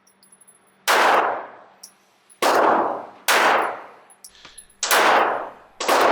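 Five pistol shots from a Ruger LCP .380 ACP pocket pistol, fired at an uneven pace, each with a short echoing tail. These are the last shots of the magazine.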